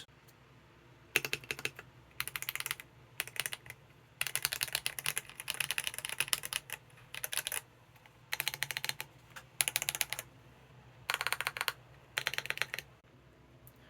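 Typing on a stock KBD67 Lite mechanical keyboard with tactile Holy Panda switches: rapid keystroke clicks in short bursts, with brief pauses between them.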